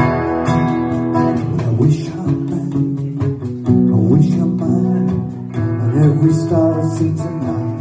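Live acoustic band music in an instrumental break: a strummed acoustic guitar and a cajon beat, with a three-string cigar box guitar playing bending lead notes over them.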